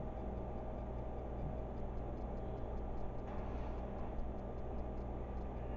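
Steady low electrical hum with a faint hiss: quiet kitchen room tone, with a faint rustle a little past the middle.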